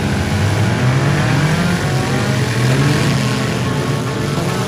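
Four-cylinder engines of several demolition derby cars revving, their pitch rising and falling unevenly as the cars accelerate and manoeuvre.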